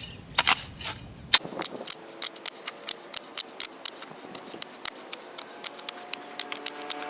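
Hand tool scraping and chopping through a dry mix of cement powder and sand on the road surface, a quick run of sharp scraping strokes, several a second, that starts about a second and a half in.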